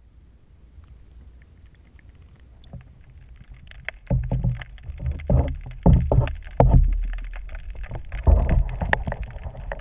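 Water slapping and sloshing against a Hobie kayak's hull and the camera mounted at its waterline. Faint low rumble at first, then loud, irregular splashes and low thumps from about four seconds in.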